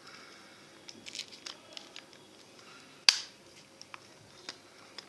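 Small plastic clicks from a Casio fx-991ES Plus calculator's case being handled and fitted back together, with one sharp loud snap about three seconds in.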